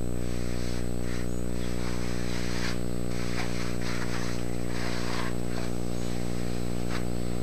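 A cloth wiping a milling machine's table and the bottom of a vise: a series of soft, irregular swishes over a steady low hum.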